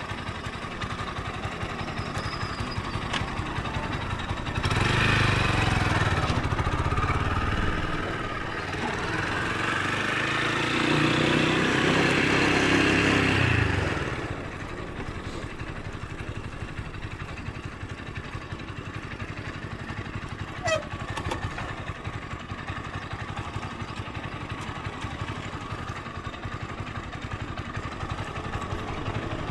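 Motorcycle engine running, louder for several seconds from about five seconds in until about fourteen, its pitch rising and falling with the throttle, then back to a steady low running sound. One short click about two-thirds of the way through.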